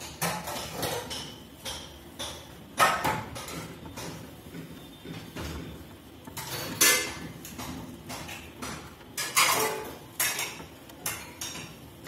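Irregular metallic clinks and taps of the fridge's copper drain-line tubing being handled and worked by hand at the compressor, with a few louder knocks a few seconds apart.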